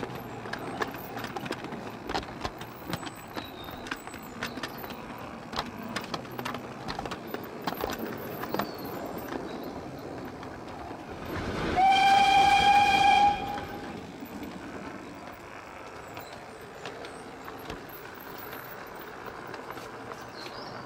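Full-size heritage steam train running: a steady rolling sound with irregular clicks of wheels over rail joints. About twelve seconds in, the locomotive gives one steam whistle blast of about a second and a half, the loudest sound.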